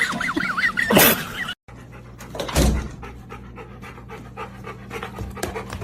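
A dog panting over a steady low hum. It comes after a short wavering high-pitched sound that cuts off abruptly about a second and a half in.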